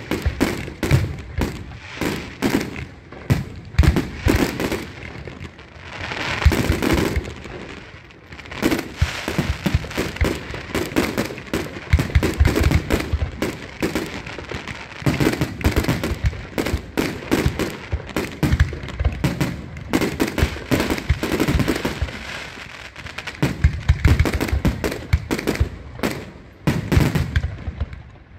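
Fireworks going off: a dense, continuous run of bangs and crackles, with a stretch of hissing about six seconds in.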